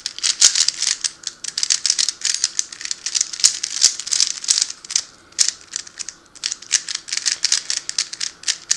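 3x3 Rubik's cube being scrambled by hand: a fast, continuous clicking and clacking of its plastic layers turning, thinning out briefly about five and a half seconds in.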